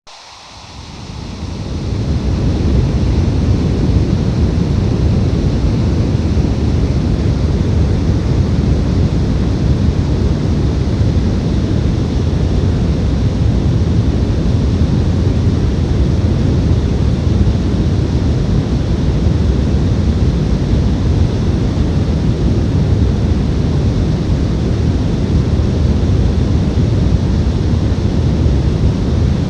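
Brown noise: a steady, deep rushing hiss weighted heavily toward the bass, fading in over the first two seconds and then holding constant.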